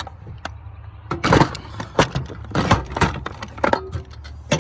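Tools and hard items clattering and knocking as they are handled and shifted inside a truck tool box: a series of sharp clanks and clicks in uneven bunches.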